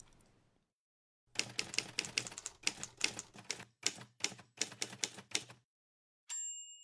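Typewriter keystrokes clicking in an irregular run for about four seconds as text is typed out, followed near the end by a short high ring.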